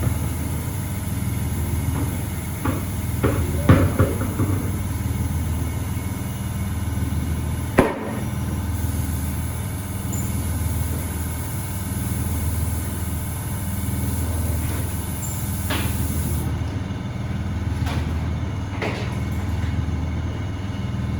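Shop machinery running with a steady low hum that swells and fades gently, with several sharp knocks and clanks, the loudest about eight seconds in.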